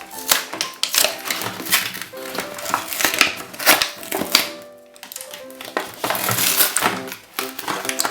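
Light classical background music over frequent clicks, crunches and crinkles of cardboard and plastic packaging being handled as a toy is unboxed.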